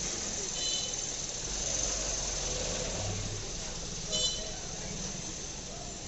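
Street traffic noise with two short vehicle horn toots, one about half a second in and a louder one about four seconds in.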